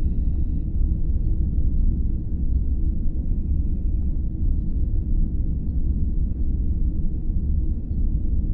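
Steady deep rumbling hum, a continuous low drone with no pitch changes. A few faint short high electronic tones sound at the start and again about three seconds in.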